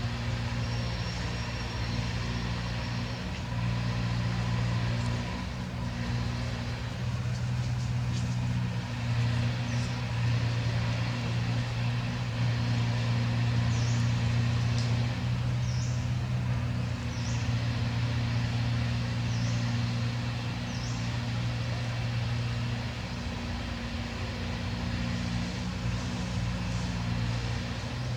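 An engine running steadily, a low hum that holds its pitch throughout, with a few faint short high chirps from about ten seconds in.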